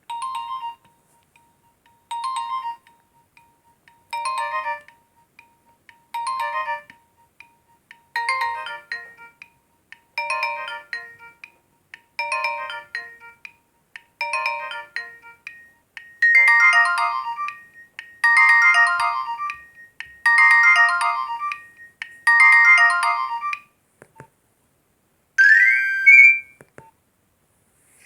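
Nokia 1208b mobile phone ringtone: a short electronic melody repeating about every two seconds, growing louder and fuller about two-thirds of the way through. Near the end comes a brief rising sweep.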